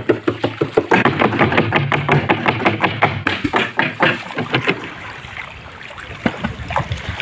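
Wooden pole repeatedly plunged and slapped into shallow water from an outrigger boat, about four splashy strikes a second, to scare fish toward a net. The strikes thin out and grow quieter about two-thirds of the way through.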